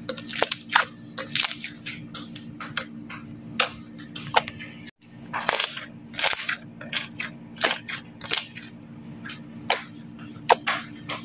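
Slime being squeezed and pressed by hand, giving off irregular sharp popping and crackling clicks as air pockets burst, over a faint steady low hum.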